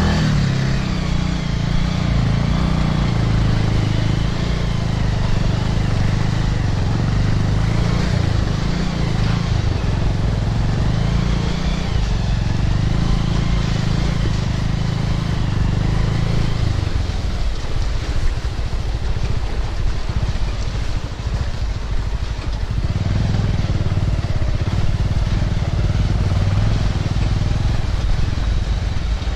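Motorcycle engine running as the bike rides slowly over a slushy, muddy snow track. The engine note fades for several seconds past the middle, then picks back up.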